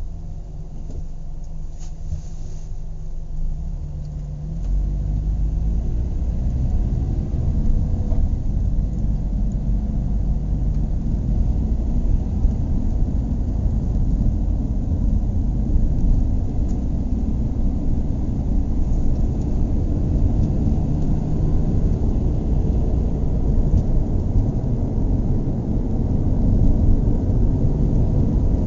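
Car engine running with a steady low rumble; about five seconds in it picks up revs, its pitch rising for a few seconds before settling.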